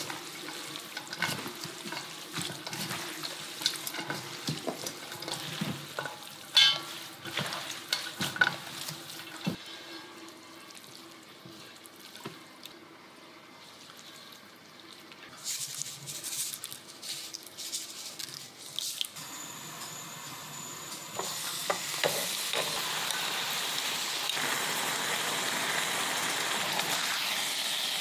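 Gloved hands tossing japchae, glass noodles and vegetables, in a stainless steel bowl: irregular soft clicks and rustles. About three-quarters of the way in, a steady sizzle takes over as marinated LA galbi beef short ribs fry in a frying pan.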